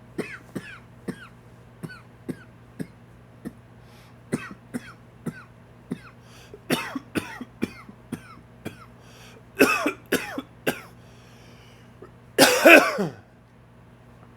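A man's dry, wheezy allergy cough: a long run of short coughs about every half second, with louder fits in the middle and one longer, louder cough near the end.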